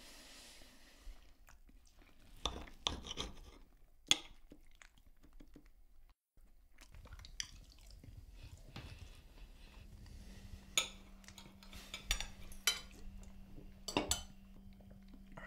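A fork and cutlery clinking and scraping on a dinner plate at a quiet meal, with a few sharp clinks scattered through. The sound drops out for a moment about six seconds in.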